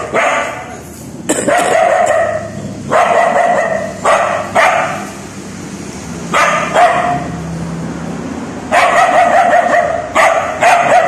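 A dog barking and yelping in a series of high, loud calls, some short and some drawn out for a second or more, with brief pauses between them.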